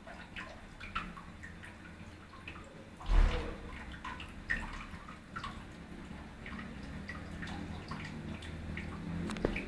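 Vortice window-mounted exhaust fan running with a steady low hum, amid scattered light drip-like ticks. A loud thump about three seconds in, and a sharp knock shortly before the end.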